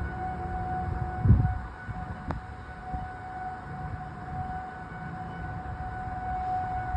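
Federal Signal 2001-130 outdoor warning sirens sounding a steady alert tone, one held pitch, over low rumbling noise, with a single thump about a second in.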